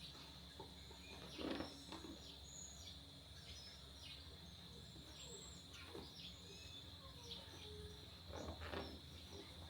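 Faint birds chirping in short scattered calls over a steady high-pitched hum, with a few soft knocks.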